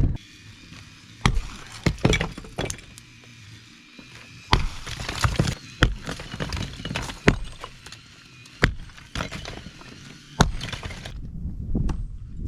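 Sledgehammer striking a cinder block wall, about eight irregular blows a second or more apart, with block and concrete crumbling and rubble falling after some of them.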